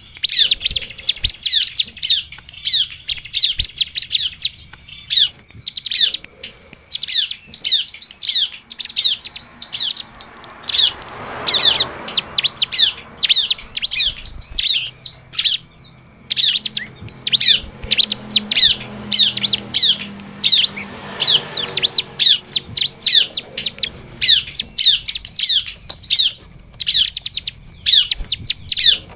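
Bar-winged prinia (ciblek) singing in rapid, excited runs of sharp, downward-slurred chirps, nearly without pause and with only short breaks between phrases.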